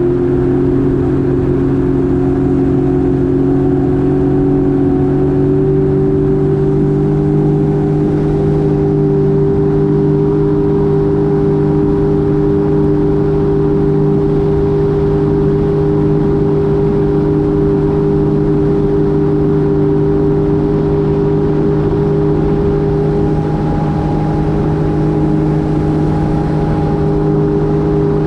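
Jet ski engine running steadily at speed, its pitch rising slightly about six seconds in and then holding even.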